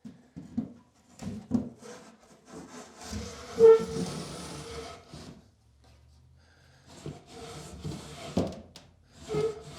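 Wooden dresser drawers being pushed in and worked into place: wood scraping and rubbing on wood, with several knocks as they bump home. The drawers fit tightly and are finicky to get in.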